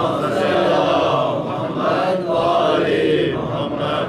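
A group of men chanting together in unison, loud and sustained, a devotional chant that falls away right at the end.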